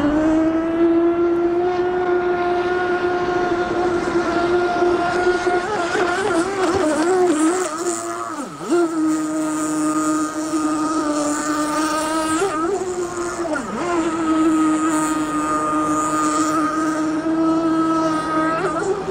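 CMB 45 two-stroke nitro engine (7.5 cc) of an offshore model racing boat running flat out: a steady high-pitched buzz. Its pitch sags briefly and picks back up about three times.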